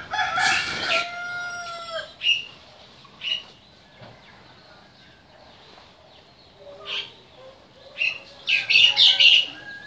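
A rooster crowing at the start, its call held for about two seconds, then scattered short bird chirps, with a brief flurry of louder chirping near the end.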